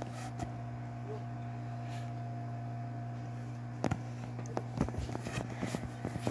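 A steady low hum runs under the whole stretch. From about four seconds in come scattered short clicks and rustles of hands handling the blanket and the phone close to the microphone.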